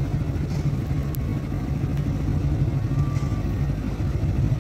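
Motor scooter engine idling close by with a steady, rough low rumble.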